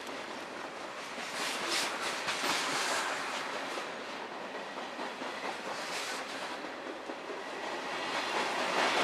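Freight cars of a passing freight train rolling by close at track level: a steady rumble and hiss of steel wheels on rail, with a few wheel clacks over rail joints. It gets louder near the end as a covered hopper passes.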